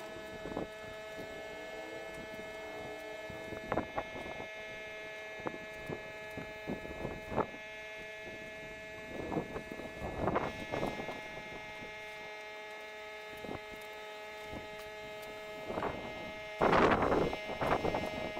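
Steady hum of the chemical-spraying rig's pump running, with short hissing bursts of spray several times; the longest and loudest comes near the end.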